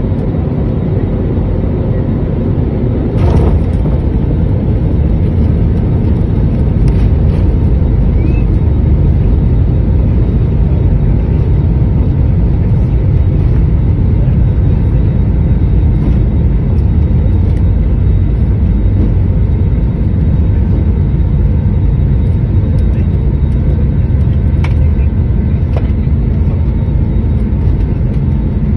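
Jet airliner cabin noise during the landing roll: a loud, steady rumble of the turbofan engines and the wheels on the runway, with a sharp thump about three seconds in.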